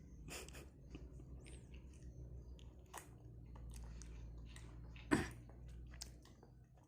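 A child chewing pempek, with soft scattered mouth clicks and smacks over a faint steady hum, and one louder click about five seconds in.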